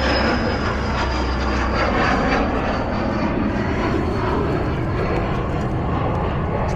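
Aircraft engine noise running steadily, with a thin high whine that slowly falls in pitch.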